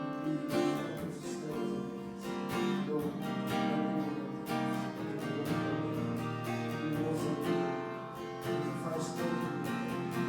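Acoustic guitar strumming chords steadily as soft background music.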